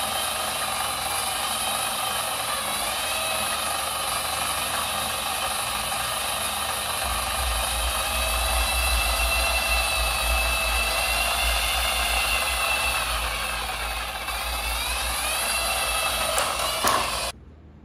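Electric treadmill running, a steady motor whine that wavers in pitch. A low rumble joins about seven seconds in, and the sound cuts off suddenly near the end.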